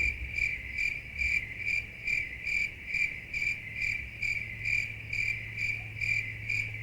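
Cricket chirping sound effect: a high chirp repeating evenly about two and a half times a second over a faint low hum, the stock 'crickets' gag for an awkward silence.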